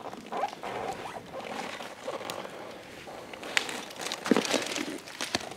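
Irregular rustling, scraping and small knocks of a person climbing down, clothing and feet brushing and bumping against the surface, a little busier about two thirds of the way through.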